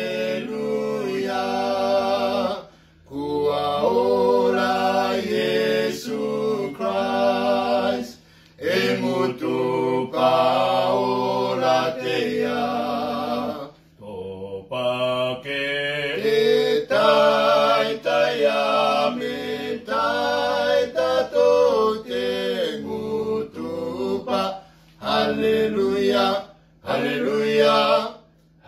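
Three men singing a Cook Islands hymn together, unaccompanied, in phrases broken by short breaths.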